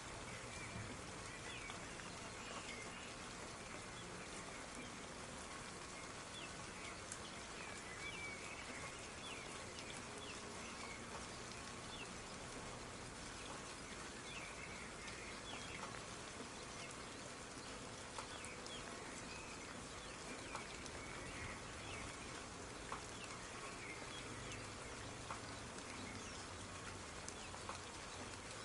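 Soft, steady rain with scattered individual drops, and faint short high chirps repeating throughout.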